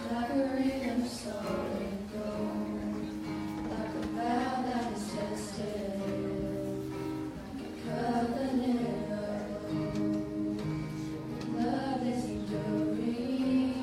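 Live worship music: acoustic guitar playing under singing.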